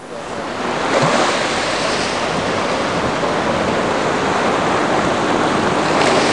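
Steady rush of wind on the microphone mixed with ocean surf, fading in over the first second.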